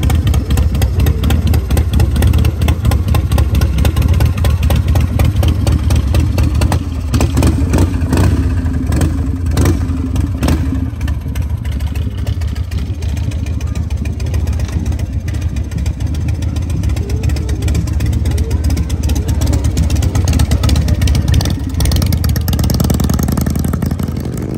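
V-twin motorcycle engine running loudly with a fast, even beat, blipped up and down, then pulling away near the end.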